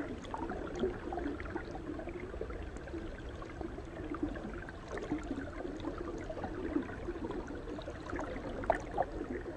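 Faint water ambience: a low, steady gurgle with scattered small ticks.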